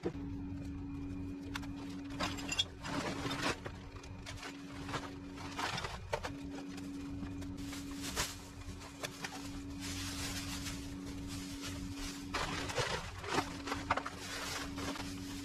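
Plastic rubbish and a black garbage bag rustling and crinkling as litter is picked up by hand and bagged, with scattered scrapes, footsteps in long grass and light knocks, over a steady low hum.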